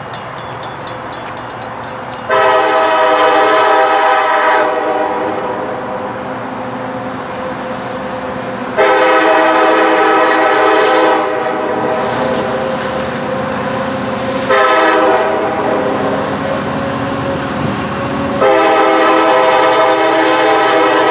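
Approaching freight locomotive's air horn sounding the grade-crossing signal: two long blasts, a short one, and a fourth long blast beginning near the end, each a chord of several notes over the steady rumble of the train. A rapid, high ticking is heard through the first few seconds.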